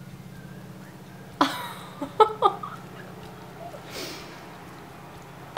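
A woman's short wordless laughs and giggles, a few quick voiced bursts, then a breathy exhale, over a steady low hum in the room.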